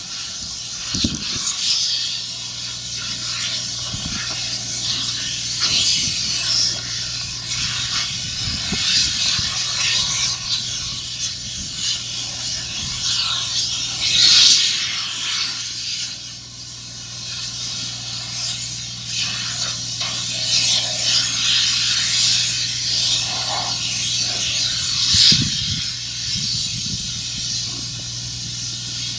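A steady hiss that swells and fades several times, over a constant low hum.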